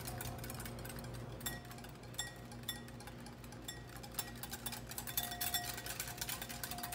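Wire whisk beating an egg yolk mixture in a glass mixing bowl: quick, irregular light clicks and taps of the wires against the glass as oil is drizzled in to emulsify mayonnaise. A faint steady hum lies underneath.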